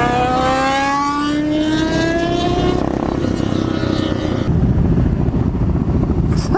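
Suzuki DR650 supermoto's single-cylinder engine accelerating, its pitch rising steadily for about three seconds, then steady engine and wind noise while riding, louder in the second half.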